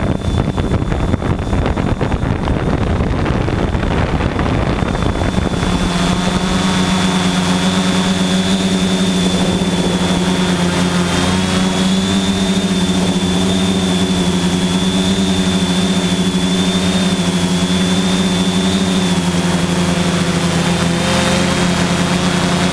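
Quadcopter's electric motors and propellers humming close to the microphone, with a steady low drone and a thin high whine over it. For about the first five seconds a rough rushing noise covers the hum, which then settles into a steady pitch.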